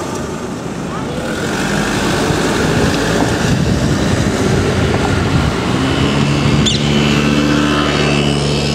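Mercedes-Benz emergency van driving past close by with its siren off: engine and tyre noise on the street. About six seconds in a steady low engine hum sets in.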